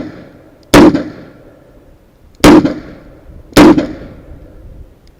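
Three revolver shots from a Smith & Wesson Model 66 fired in a stage string, the first two spaced a little under two seconds apart and the third about a second later, each with a brief ringing echo.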